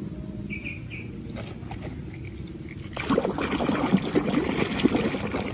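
Water splashing and sloshing as a hand moves through shallow muddy water to wash a toy, starting suddenly about three seconds in after a quieter stretch.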